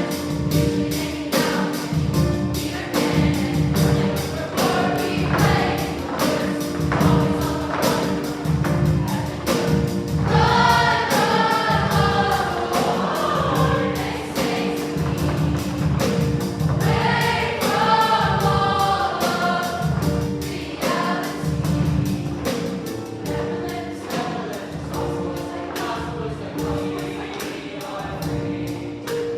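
Choir singing over an accompaniment with a steady beat and sustained held chords; the voices come forward strongly twice, about a third and two thirds of the way through.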